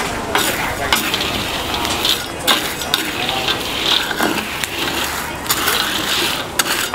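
Stirring and scraping in a cooking pan: a dense, gritty rustle broken by many short clicks and scrapes.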